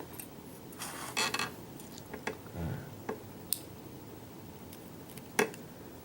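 Light metallic clicks and clinks of small lock pins, springs and tools being handled as a pin-tumbler lock is taken apart, with a short cluster about a second in and a sharper single click near the end.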